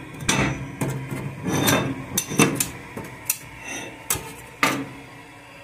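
Metal clinks and scrapes as a knife pries up and slides a round lid off the top plate of a Venâncio wood-burning stove, about eight sharp clanks spread over several seconds.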